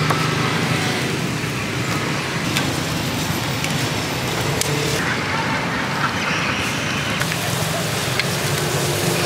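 Busy roadside street ambience: a steady hum of passing traffic, with a few sharp clicks of metal tongs against a charcoal grill.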